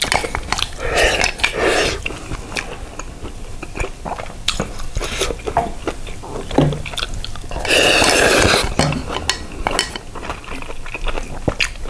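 Close-miked eating of jjajang ramen noodles: chewing with many small clicks of chopsticks on a bowl, a short slurp of noodles about a second in and a louder, second-long slurp about eight seconds in.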